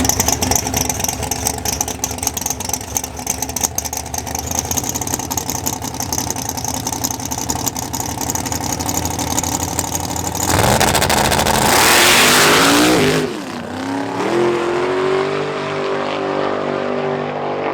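Big-block Chevy drag-race engine running steadily, then about ten seconds in launching at full throttle with a loud rising rev. Its pitch then climbs again as it runs away down the track, fading.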